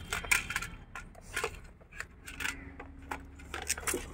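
Toy vehicles clicking and clattering as a plastic toy excavator's arm is pushed against a pile of toy cars on a tiled floor: a string of irregular light knocks.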